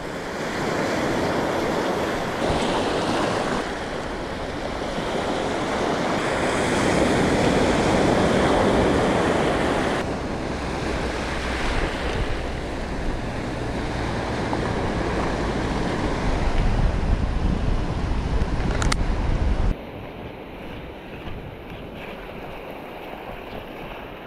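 Sea waves breaking and washing over a rocky cobble shore, swelling and ebbing, with wind rumbling on the microphone through the middle stretch. The sound drops suddenly to a quieter wash about three-quarters of the way through.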